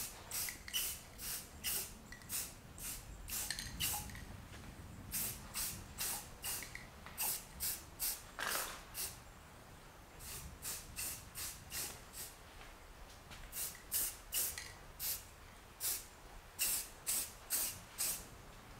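A Rust-Oleum camouflage flat aerosol spray paint can sprayed in short bursts, about two a second, in runs broken by brief pauses, laying down a tan base coat.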